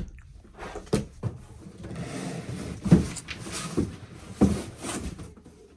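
A cardboard box and its packaging being handled and pulled about: a series of separate knocks and thuds, about five, with scraping and rubbing between them.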